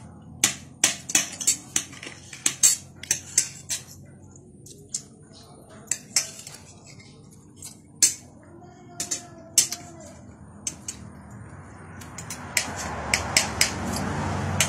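Spoons and forks clinking and scraping on ceramic dinner plates as rice is eaten, in quick bursts of sharp clicks at first, then sparser. A rising rush of steady noise builds in the last few seconds.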